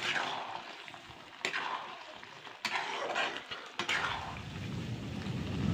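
Potatoes and wet masala sizzling in a hot wok as a ladle stirs them, a clack of the ladle and a fresh burst of sizzle about every second or so, fading between strokes. About four seconds in, a low rumble comes in and grows to be the loudest sound.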